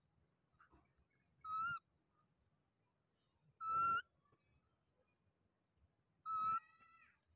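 Baby macaque giving three short, high whistle-like coo calls, a couple of seconds apart, the last trailing off into a fainter wavering second note.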